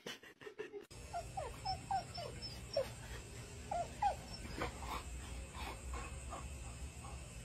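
A boxer dog whining in a quick series of short whimpers, each falling in pitch, over a steady low hum.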